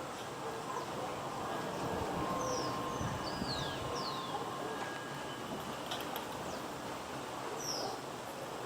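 City street ambience: a steady hum of distant traffic with several short, high, falling bird chirps about two to four seconds in and again near the end.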